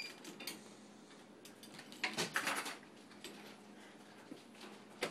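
Kitchen clatter of things being handled and put away: a cluster of clinks and knocks about two seconds in, and one sharp knock near the end.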